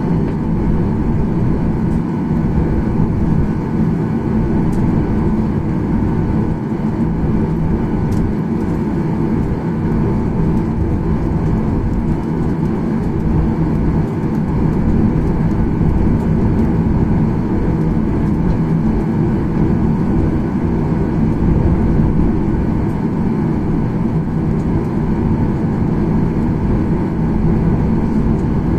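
Steady low rumble inside a jet airliner's cabin while it taxis after landing, its jet engines at idle.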